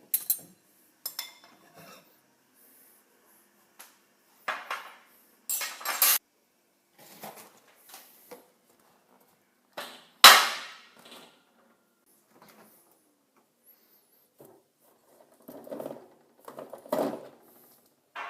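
Intermittent clattering and knocking of hard objects being handled, with one loud ringing clank about ten seconds in.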